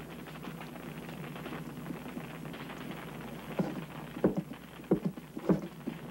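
Flames crackling, then four heavy boot steps on a wooden floor, a little over half a second apart, starting about three and a half seconds in.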